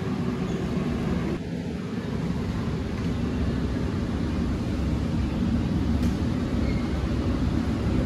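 Background noise of a large warehouse store: a steady low rumble with no distinct events, getting a little louder in the second half.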